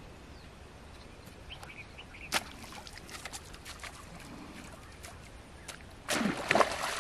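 Faint bird chirps and a single sharp click, then a large hooked fish splashing and thrashing at the water surface, starting suddenly about six seconds in.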